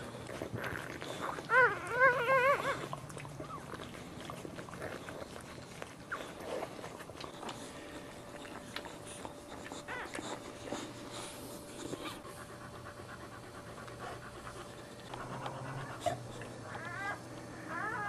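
Newborn boxer puppies squealing: a loud wavering high cry about two seconds in and short rising squeaks near the end, with the mother boxer panting between them.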